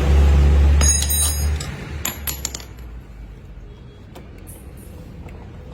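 A low steady hum that stops about a second and a half in, overlapping a few sharp metallic clinks with a short ring, like small metal parts or tools being handled, then quieter shop background.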